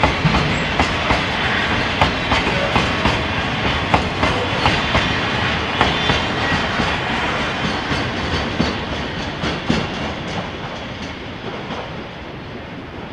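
Cement tank wagons of a freight train rolling past, their wheels clicking over the rail joints in a regular clickety-clack. The sound fades steadily over the last few seconds as the train moves away.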